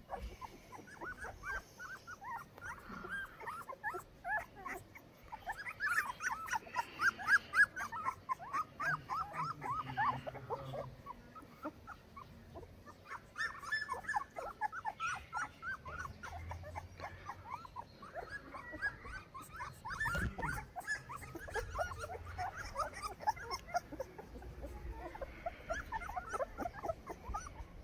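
Two-week-old Saint Bernard puppies whimpering and squealing: many short, high, thin cries in clusters, loudest about six to eight seconds in.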